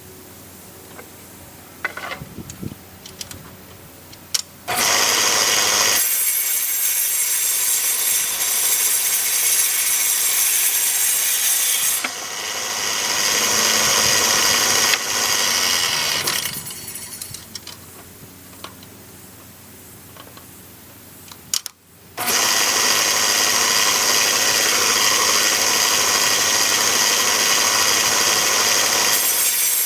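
A woodworking power tool cutting rough white oak boards in two long, loud runs. Quieter stretches with a few clicks of board handling come before the first run and between the two.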